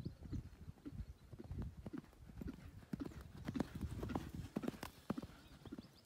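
Hoofbeats of a horse running on a sandy dirt track: a faint, quick run of dull thuds, about three to four a second.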